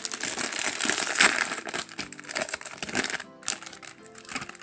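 Foil blind-bag toy packet crinkling as it is pulled open and handled, dense for about three seconds and then quieter, with quiet music underneath.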